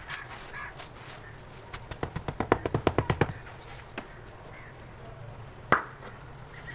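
Tapping on a dry sand-cement block: a quick, even run of sharp taps, about ten a second, starting about two seconds in, with a few single knocks around it, the loudest near the end.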